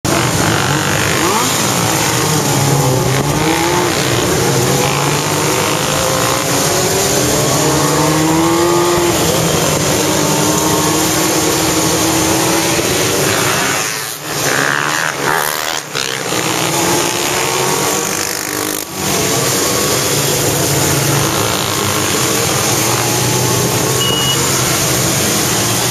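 Motorcycle engines of a big riding group running and revving, their pitch rising and falling as they change speed. The sound drops briefly a few times about halfway through.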